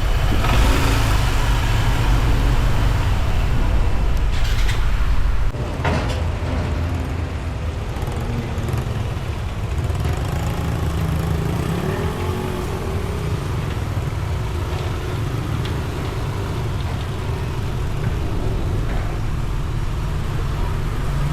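Steady motor-vehicle engine rumble and road traffic noise, with the low rumble dropping abruptly about five and a half seconds in and a brief wavering pitched sound around the middle.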